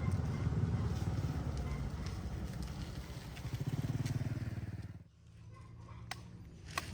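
Small motorcycle engine running with a fast, pulsing rumble, which stops abruptly about five seconds in. Two sharp clicks follow near the end.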